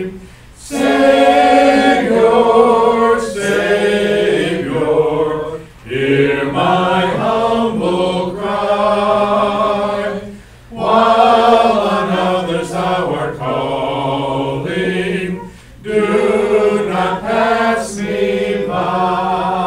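Congregation singing a hymn together, in sung phrases of about five seconds with short breaks between them.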